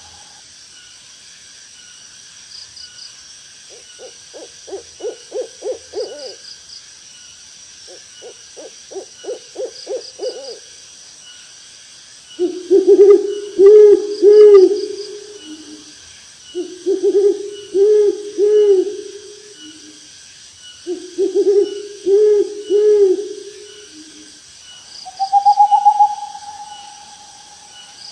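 Owls hooting: two quick runs of short rapid hoots, then three louder phrases of rhythmic hooting, each about three seconds long. Near the end comes a longer, higher, drawn-out call.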